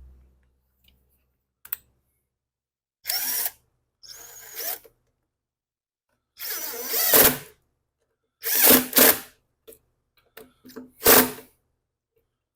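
Cordless drill/driver spinning in about five short bursts, driving screws snug.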